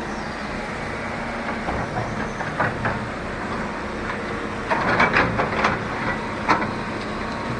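Heavy demolition equipment: an excavator's diesel engine running steadily, with a burst of clanks and knocks about five to six and a half seconds in.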